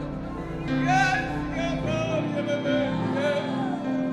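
Worship music between sung lines: sustained keyboard-style chords and bass, with a voice singing a held, wavering melody.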